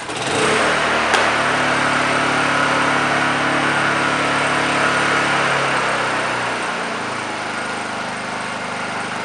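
Honda EU2000 inverter generator's small single-cylinder four-stroke engine, warm, pull-started and catching at once, then running steadily. About six seconds in, its speed drops to a lower, slightly quieter steady note as it settles into eco-throttle.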